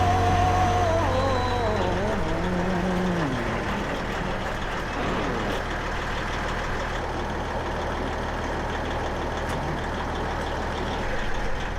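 Detroit Diesel 8V92 two-stroke V8 in a semi truck turning over on its electric starter without catching. The starter has a dead spot that keeps it from spinning fast enough. The tail of a song fades out over the first few seconds.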